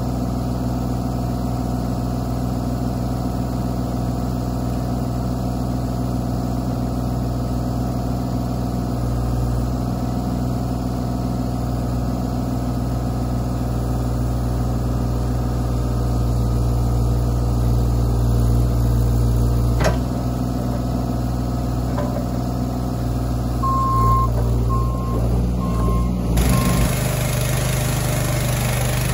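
Bobcat mini excavator's diesel engine running steadily while its arm and thumb hold a log over a sawmill bed, with a single sharp knock about two-thirds of the way through. Near the end four short high beeps sound, then the engine sound changes abruptly.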